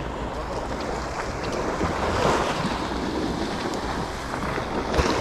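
Small waves washing up onto a sandy beach, with wind buffeting the microphone.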